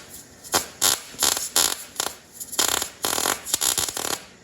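Wire-feed welder arcing in a string of short crackling bursts, about eight in four seconds, stopping near the end. The weld doesn't sound good, which the welder puts down to too little wire feed speed.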